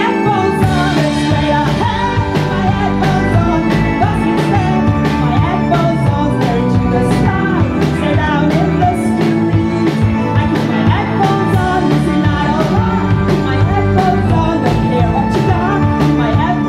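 Live band playing a song: a woman sings over electric guitar, bass, keyboard and a small drum kit, with the drums keeping a steady beat of about two hits a second.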